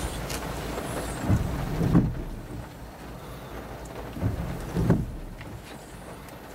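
Steady low rumble inside a car cabin, with soft muffled thumps coming in pairs about every three seconds.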